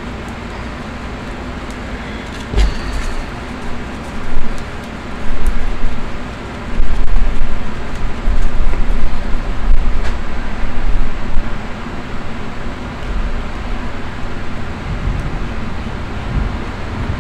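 Steady rumbling background noise, with heavier low buffeting from about five to eleven seconds in and a couple of sharp clicks.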